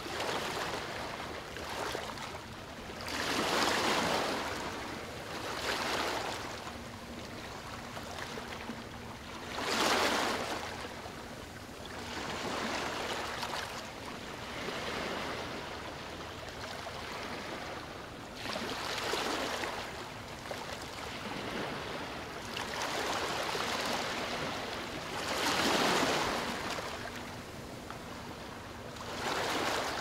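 Small ocean waves breaking and washing up a sandy beach: a steady rush of surf that swells into a louder surge every few seconds as each wave comes in.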